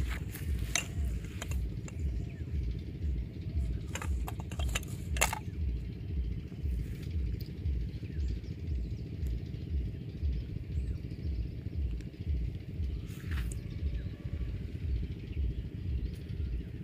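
An engine running steadily with a regular low throb, about two or three beats a second, and a few light clicks and taps about four to five seconds in.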